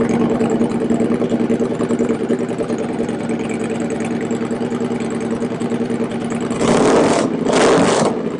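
Victory Cross Country's big V-twin running with a steady, loud rumble through its custom Azzkikr Talladega exhaust, then revved twice in quick succession near the end.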